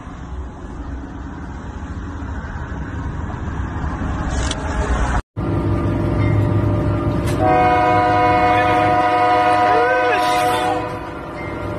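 Wind and road noise inside a moving car, growing louder and then cut off abruptly. A train horn then sounds one long chord of several steady tones for about three and a half seconds, heard from the cab through a cracked windshield: a warning for a truck at a level crossing.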